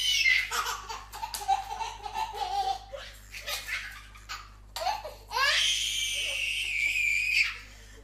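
A baby laughing hard: choppy giggling laughs, then a long high-pitched squeal of laughter about five seconds in that lasts about two seconds.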